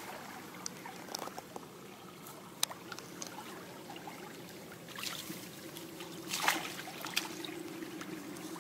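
Shallow ditch water trickling, with scattered light splashes and clicks as a mesh net is waded in and pushed into the water; the loudest splash comes about six and a half seconds in.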